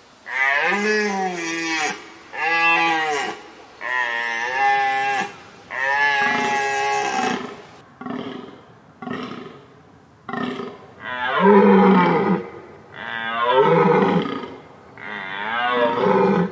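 Deer calling: a series of long, pitched calls of one to two seconds each, with three shorter calls around the middle.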